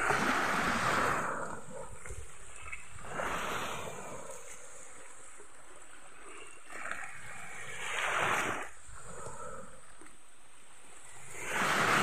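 Small waves breaking and washing up a sandy beach, each swash rising and falling away, about four times, every three to four seconds.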